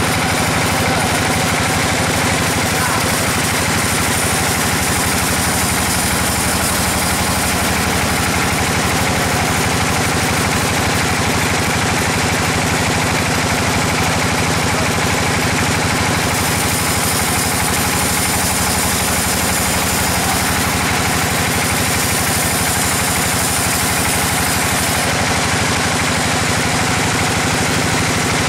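Band sawmill running steadily, its blade sawing lengthwise through a large squared log: a loud, unbroken machine noise with a steady hum underneath.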